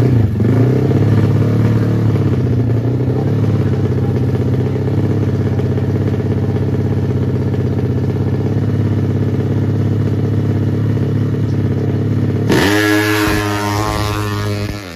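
Drag-racing motorcycle engine held at steady high revs for a long stretch. About twelve seconds in it revs up sharply with a rising pitch, as at a launch, and it falls away near the end.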